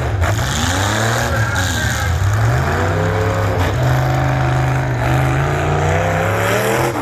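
Truck engines running and revving, several at once, their pitch rising and falling over a loud steady low drone.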